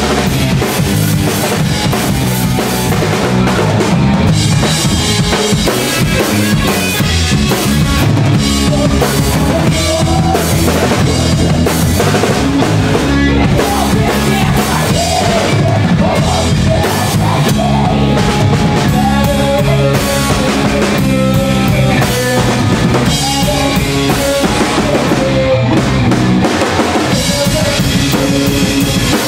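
Rock trio playing live: electric guitar, bass guitar and a drum kit with bass drum and snare, and the guitarist singing into the microphone.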